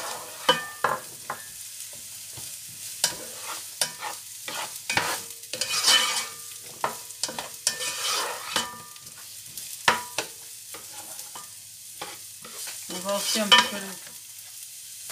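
Black spatula stirring and scraping diced aubergine and courgette around a stone-coated sauté pan, the vegetables sizzling in olive oil as they sweat. Irregular scrapes and taps, busiest about five, eight and thirteen seconds in.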